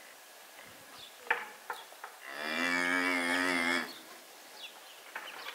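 A cow mooing once: one long, steady call of about a second and a half, starting a couple of seconds in.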